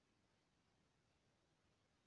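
Near silence: faint steady hiss, with no distinct sound.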